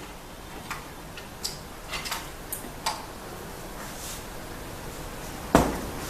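A 1/14-scale RC hydraulic excavator at work: its pump runs steadily under a series of light mechanical clicks and ticks, then one loud knock about five and a half seconds in.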